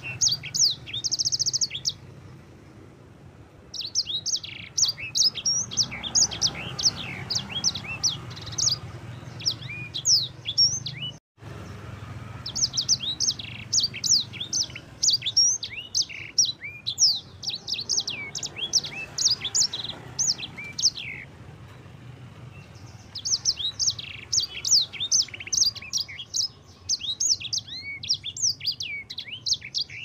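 A sanger (grey singing finch) singing a fast, high, twittering song in long phrases, breaking off briefly near the start and again about two-thirds of the way through, over a steady low hum.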